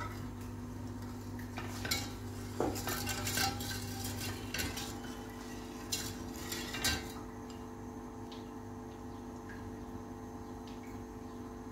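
Metal kitchen utensils clinking and knocking against a stainless steel pot and other cookware, a scattered few knocks over the first several seconds. After that there is only a faint steady hum.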